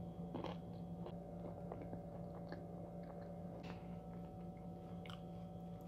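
A person quietly chewing a macaron with the mouth closed: soft, scattered small mouth clicks and short squishy noises.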